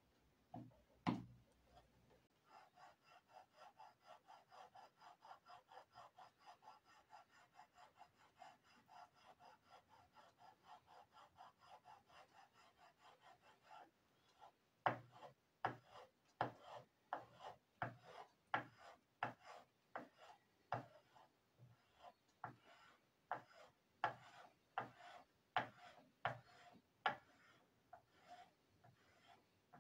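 Small hand-held metal planer scraped back and forth across the flat of a wax printing block to smooth it, each stroke a rasping scrape. The strokes come quick and even, about two or three a second with a faint squeaky ring, then from about halfway they turn louder and sharper, a little under two a second.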